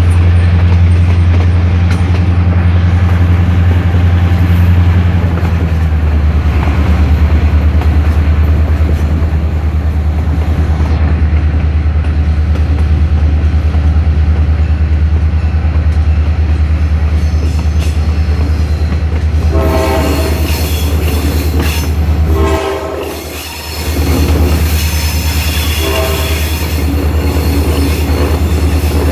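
Diesel engines of two EMD road-switcher locomotives, a GP9 and a GP30, running under load with a loud steady low drone that shifts in pitch about six seconds in and briefly drops away for about a second near the end. From about two-thirds through, short repeated high squeals of steel wheels on the rail join in.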